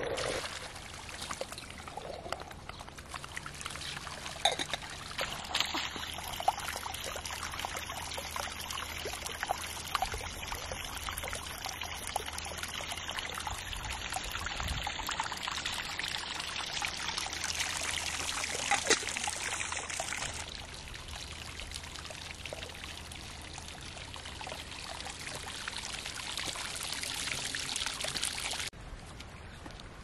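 Water pouring and trickling steadily, with a few light knocks; the sound drops away sharply near the end.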